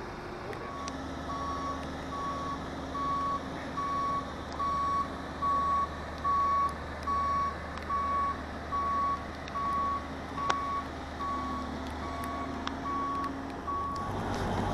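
A heavy vehicle's reversing alarm sounds a steady series of evenly spaced single-pitch beeps, about three every two seconds, stopping near the end. Under it the vehicle's diesel engine runs steadily.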